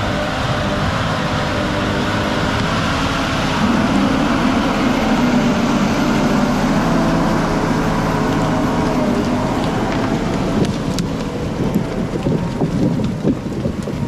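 Heavy vehicle engine running under load with a rumbling, noisy wash over it. It gets louder about four seconds in, then turns rougher and more uneven near the end.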